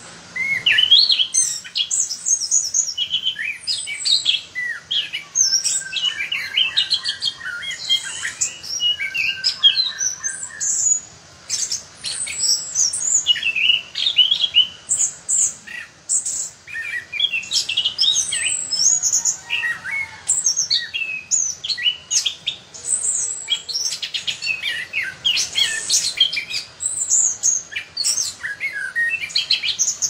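Orange-headed thrush (anis kembang) singing a long, varied song of rapid whistled phrases and chattering notes, with a few short pauses.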